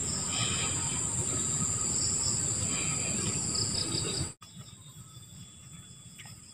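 Insects shrilling in dense vegetation: a steady high drone with bursts of pulsed chirping over it. It cuts off suddenly about two-thirds of the way through, leaving only a faint outdoor background.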